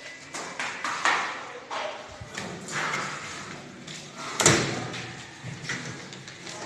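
Knocks, clatter and rattling as kitchen cabinet doors and a wire dish rack are handled, with the loudest knock about four and a half seconds in.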